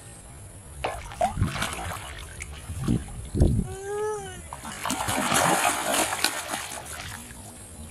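A large hooked fish thrashing at the surface of a small muddy pool, churning and splashing the water for about a second and a half some five seconds in. Just before it comes a short pitched cry, and a few dull knocks are heard earlier.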